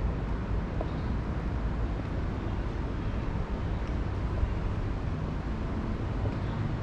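Steady city street background noise, mostly a low rumble of traffic, with no voices.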